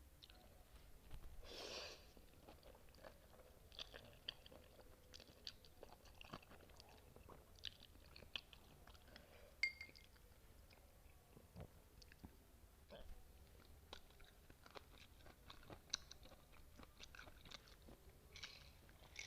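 Close-miked chewing while eating noodles and kimchi: many small wet clicks and crunches, with a longer noisy burst about one and a half seconds in.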